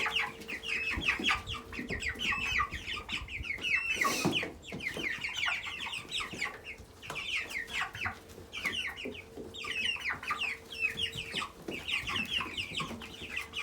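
A group of poultry chicks cheeping: many short, high peeps in quick runs. A faint steady hum runs beneath, and there is a brief rustle about four seconds in.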